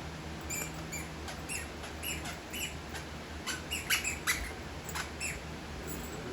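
Squeaky hedgehog dog toy squeaking in a dozen or so short, high squeaks at an irregular pace as a dog mouths and chews it.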